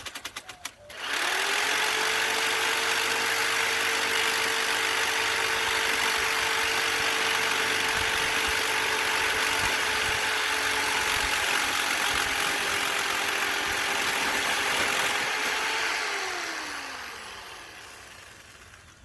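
Corded electric power tool cutting a hinge. After a brief start, it spins up about a second in and runs at a steady pitch with a loud cutting hiss, then is switched off and winds down near the end.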